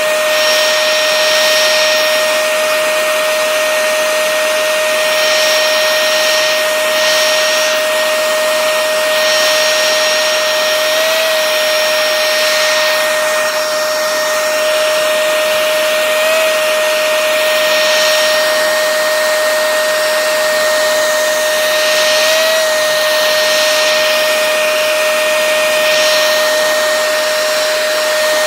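Remington 1875-watt hair dryer running steadily: an even rush of air with a steady whine from its motor. It is heating the frame of an iPad to soften the screen's glue.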